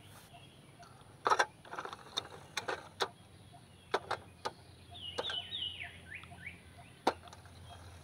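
Sharp plastic clicks and knocks from a clear plastic insect box being handled, with a few short falling bird chirps about five seconds in, over a faint steady high hiss.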